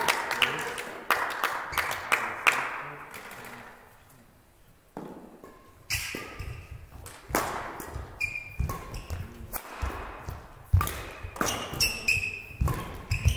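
Badminton rally: sharp racket strikes on the shuttlecock and footfalls on the sports-hall court, with short high squeals of court shoes. Scattered applause dies away in the first seconds, and the hits begin about five seconds in.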